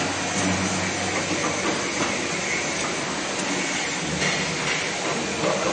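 Automatic spiral fan guard looping and welding machine running amid other workshop machinery: a steady, dense mechanical noise with a brief louder moment about four seconds in.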